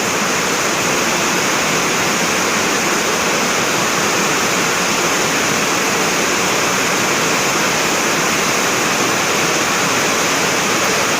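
Heavy rain pouring down in a windstorm: a loud, steady rushing.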